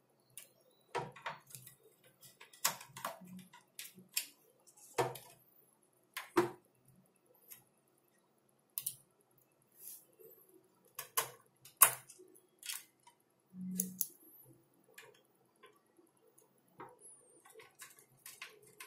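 Irregular small clicks and taps as a homemade airsoft rifle's stock and tiny screws are handled and fitted, with a small screwdriver driving the screws in; separate knocks with pauses between them.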